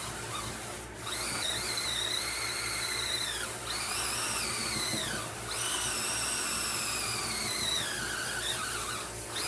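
Cordless electric spin scrubber's motor whining as the brush head spins against the tub, in three long runs whose pitch sags at the end of each. The motor bogs down whenever the brush is pressed: it is too weak to keep spinning under any pressure.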